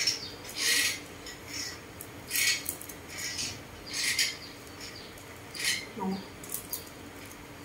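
Short, crisp rustles and scrapes come at irregular moments, roughly one a second, as dry rice paper is handled and chopsticks pick up food to fill a roll.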